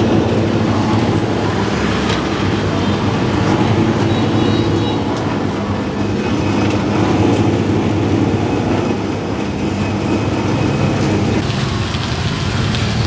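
Motorised stainless-steel sugarcane juice press running, its rollers crushing cane stalks fed through by hand: a steady mechanical rumble with a low hum.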